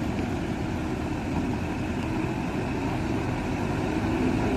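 Truck engines running with a steady low rumble, growing a little louder near the end.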